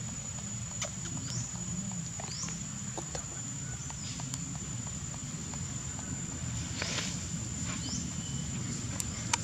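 Outdoor ambience: short, high animal chirps that fall in pitch, coming every second or so, over a steady high-pitched hum and a low rumble.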